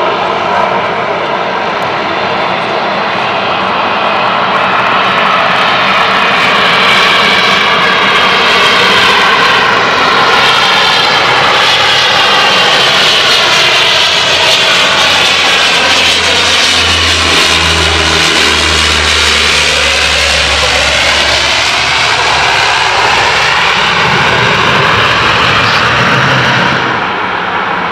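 A De Havilland Canada Dash 8-200 twin turboprop is landing, its Pratt & Whitney Canada PW123 engines and propellers making a loud, steady drone. The propeller tones bend in pitch as it passes close, around the middle. The sound then carries on as the aircraft rolls out on the runway and falls away near the end.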